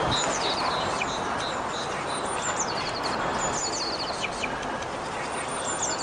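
Small songbird singing short, high, rapid twittering phrases, repeated several times, over a steady background rush.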